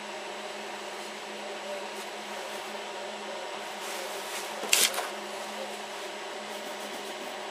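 Steady background hum with a constant low tone, and one sharp tap a little under five seconds in.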